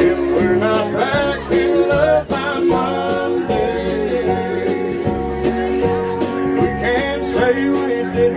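Live country band playing an instrumental passage: fiddle and guitars over a steady bass beat.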